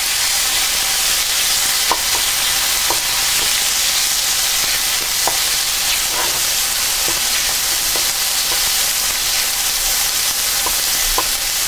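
Chopped onion, ginger and chicken liver sizzling steadily in olive oil in a stainless skillet, a constant high hiss. A wooden spatula stirs them, and there are light scattered taps and scrapes against the pan.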